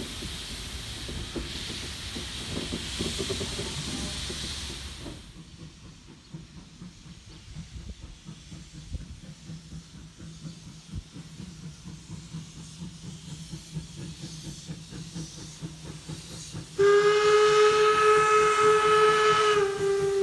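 Steam locomotive whistle, SJ 1916, blowing one long blast for a level crossing as the train approaches. It starts loud and sudden about three seconds before the end and shifts slightly in pitch just before the end. Before that there is a steady hiss for about five seconds, then quiet ambience.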